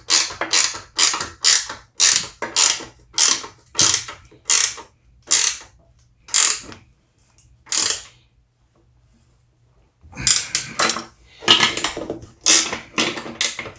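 Ratcheting box-end wrench clicking in repeated short strokes, about two a second, while the nut on a snowblower skid shoe's carriage bolt is tightened. The strokes grow sparser, stop for about two seconds, then resume.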